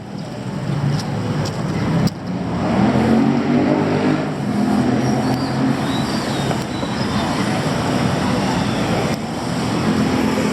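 City street traffic: vehicle engines running and passing, swelling over the first two seconds and then holding steady.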